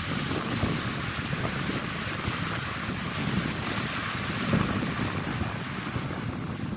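Wind buffeting the microphone in uneven gusts over a steady hiss of small waves washing onto the sand.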